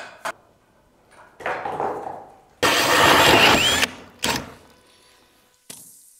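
A power tool cutting into old wooden wall paneling: one loud, even burst lasting over a second, with a shorter burst before it and after it. There is a sharp knock at the start and a click near the end.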